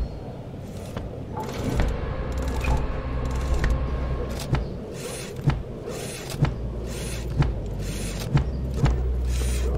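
Cartoon sound effects: a whirring, clicking mechanism with a low steady drone. About halfway through, sharp thumps start and repeat about once a second.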